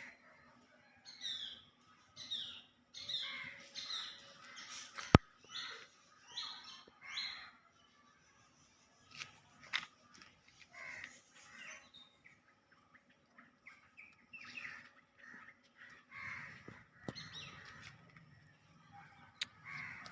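Birds chirping in many short, repeated calls, several falling in pitch, with a single sharp click about five seconds in.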